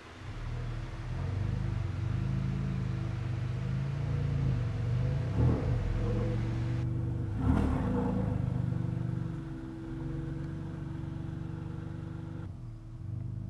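Low droning soundtrack of held deep tones that shift in steps, with two short swells rising and falling about five and a half and seven and a half seconds in.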